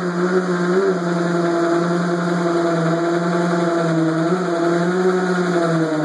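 Corded hammer drill running steadily under load, boring a hole into granite shower-wall tile with a masonry bit. The motor's pitch wavers slightly as the pressure on the bit changes.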